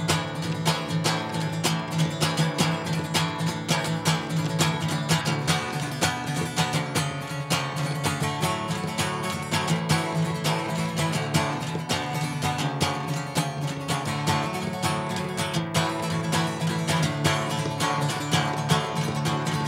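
Acoustic guitar strummed in a steady rhythm during an instrumental passage of a song, with no singing.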